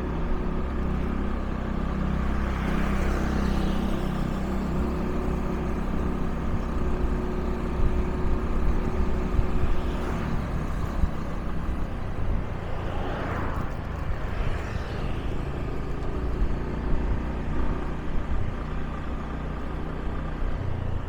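Motorbike engine running while riding, its note shifting up and down with speed over steady road noise, with two brief swells of passing noise, one about three seconds in and one around the middle.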